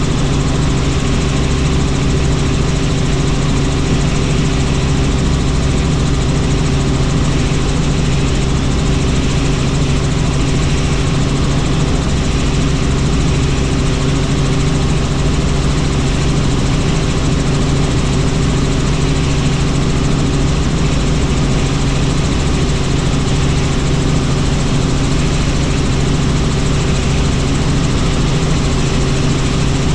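Helicopter in flight: the steady drone of the rotor and turbine engine, holding a constant pitch with no change.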